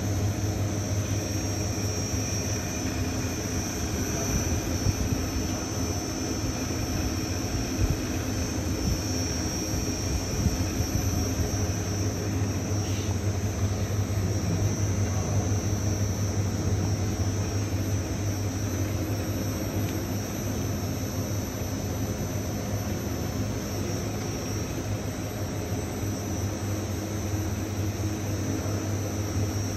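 Direct warping machine running at about 850 metres a minute, winding a sheet of yarn onto its beam: a steady machine drone with a low hum and a constant high whine.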